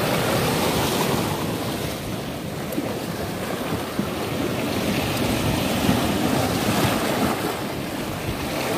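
Strong sea waves washing over a rocky shoreline: a steady rush of surf and foaming water swirling among the rocks.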